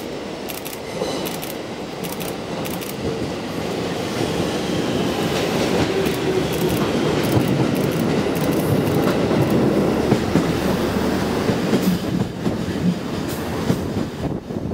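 A JR Central KiYa 97 series diesel track-inspection railcar pulls into the station and passes close by, its running noise growing louder toward about ten seconds in. Its wheels click over the points and rail joints.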